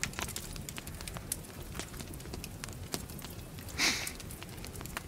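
Campfire crackling, with scattered sharp pops and snaps over a low rumble. About four seconds in there is a short breathy sound.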